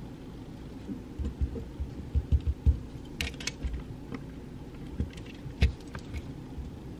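Scattered soft knocks and a few sharp clicks from someone working at a study desk, over a steady low background hum.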